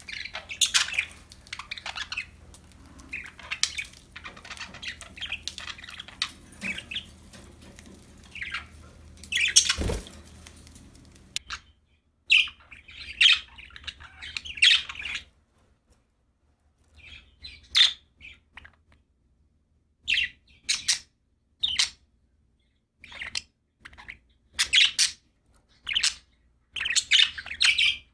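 Budgerigars chirping and warbling, densely at first, then in separate short bursts with pauses between them. There is a single sharp knock just before ten seconds in.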